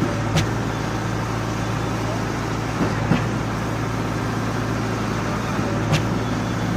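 An engine running steadily with an even low hum, with sharp clicks or knocks about half a second in, around three seconds in, and near the end.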